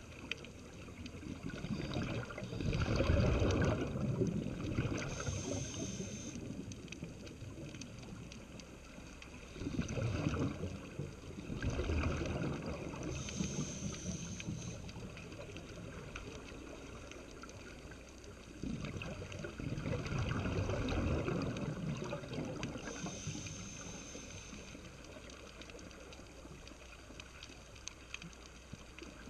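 Scuba breathing through a regulator, heard underwater. Three slow breaths come about every eight to nine seconds, each a swell of bubbling exhalation followed by a short high hiss, over a steady underwater wash.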